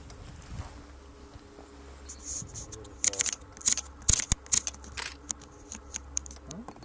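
A quick, irregular run of sharp clicks and rustles, starting about three seconds in and stopping a couple of seconds later, over a low steady hum.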